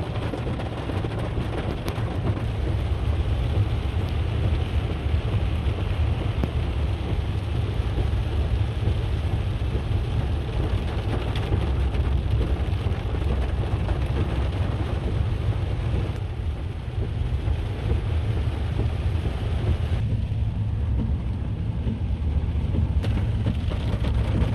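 Car driving through floodwater on a road: a steady hiss of water spray from the tyres over a heavy low rumble of the car. The hiss eases about twenty seconds in.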